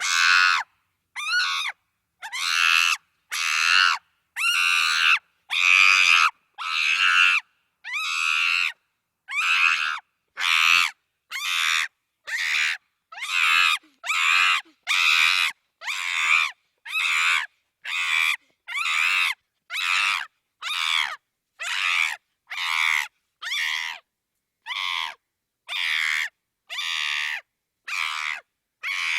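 Chimpanzee screaming: a long series of short, high-pitched screams, roughly one a second, each cut off cleanly into silence.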